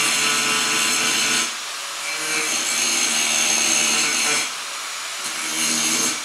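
Angle grinder grinding down a fresh weld on a steel bracket, a loud steady metal-on-metal grinding with a high ringing whine. It eases off twice, about a second and a half in and again around four and a half seconds in, then bites into the metal again.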